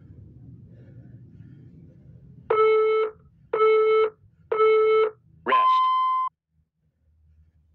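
Interval workout timer counting down: three short beeps about a second apart, then one longer, higher-pitched beep that signals the end of the work interval and the start of the rest.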